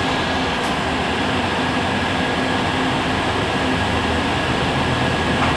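Heuliez GX 137 city bus idling at a stop: a steady low engine hum with auxiliary fans running, and a thin steady whine above it.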